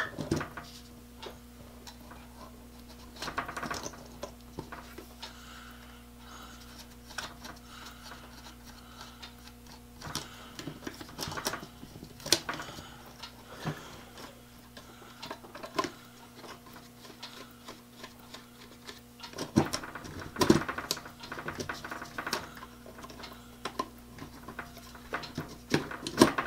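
Irregular clicks, taps and knocks of a Dremel rotary tool and the metal holder of a hobby drill press stand being handled as the tool is fitted into the stand, with a couple of busier clusters of clicks. A faint steady hum runs underneath.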